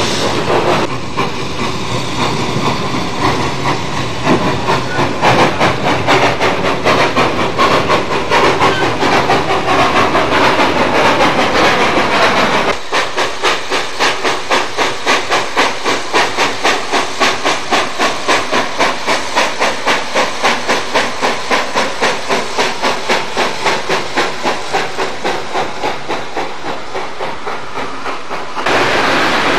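Steam cog locomotive No. 4 of the Manitou and Pike's Peak Railway, built by Baldwin in 1897, working with hissing steam and exhaust chuffs. From about halfway through, the chuffs come in a steady beat of about two and a half a second as it climbs the rack line.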